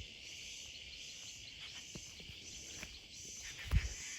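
Insects, crickets or cicadas, chirring steadily in the background in a high, gently pulsing drone, with one short dull low bump about three-quarters of the way through.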